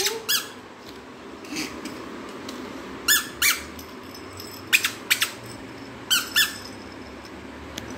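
Rubber squeeze toy squeezed and let go, giving short, falling squeaks in pairs, three times. A few sharp clicks come in quick succession about halfway through.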